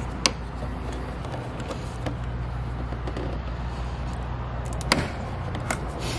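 Sharp clicks and knocks of a plastic interior trim panel being pried and worked loose from its clips: one just after the start, another about five seconds in, and a few fainter ones near the end, over a steady low hum.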